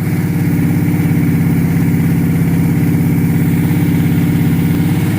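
Kawasaki Brute Force 650 quad's carbureted V-twin engine idling steadily, with an even, regular pulsing beat.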